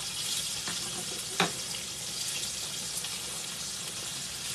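Flour-dusted chicken legs frying in hot oil in a pan, a steady crackling sizzle, with one sharp knock about a second and a half in. The oil is running too hot: the legs are browning fast.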